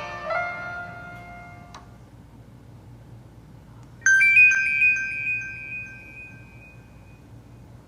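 Nokia E90 ringtones. A melodic electronic tune cuts off with a click about two seconds in. After a short pause, a bright chime of a few quick notes rings out and fades over about three seconds.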